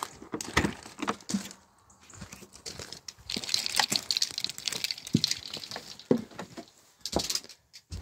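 Scattered knocks, clicks and rustling of someone stepping up into a motorhome through its habitation door, with a stretch of rustling in the middle.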